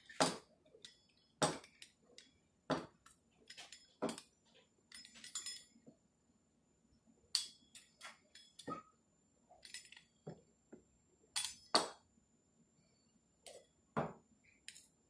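Pizza cutter clicking and tapping against a hard tabletop as it cuts rolled noodle dough into strips: sharp, irregular clicks about once a second.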